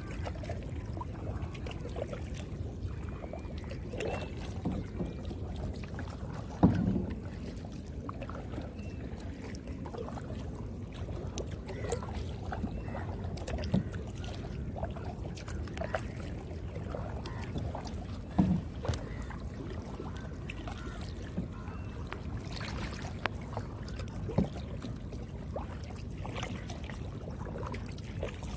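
Kayak paddling: paddle blades dipping and dripping water, with a few sharp knocks, over a steady low rumble.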